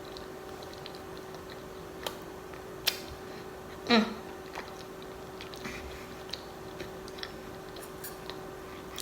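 Close-up mouth sounds of someone chewing stuffed clams: scattered wet clicks and smacks, with a brief voiced "mm" about four seconds in.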